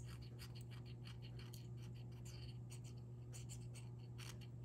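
Steel blade of a Swiss Army knife scraping dried glue residue out of the bore of a tungsten fidget spinner: short, irregular scratching strokes, several a second, over a steady low hum.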